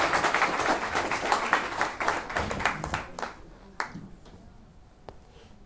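Audience applauding a speaker onto the stage, the clapping thinning out and dying away about three seconds in, followed by a couple of last stray claps.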